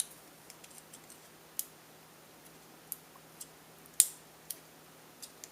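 Tin snips cutting the thin sheet metal of a tuna can's sidewall: a string of sharp, irregular snips and clicks, the loudest about four seconds in.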